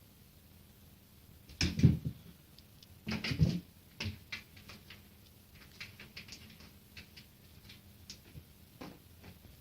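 A cat jumping at a window: two heavy thumps, about two and three and a half seconds in, then a scatter of light taps and scratches.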